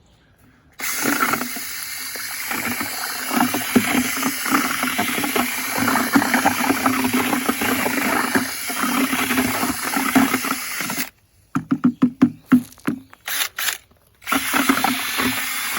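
Electric drill with a paddle mixer churning a wet sand-and-Portland-cement concrete mix in a bucket: it runs steadily for about ten seconds, is pulsed in a series of short bursts, then runs steadily again near the end. The mix is coming out quite wet.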